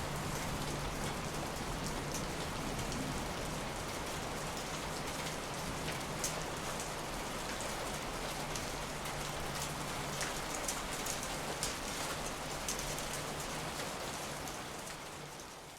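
Steady rain falling, with scattered sharp crackles from a fireplace mixed in over a low steady hum, fading out near the end.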